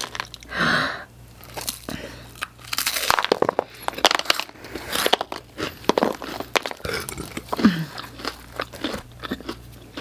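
Close-up mouth sounds of someone biting into and chewing pizza topped with crunchy Hot Cheetos, with bursts of crunching and crackling that come in quick clusters.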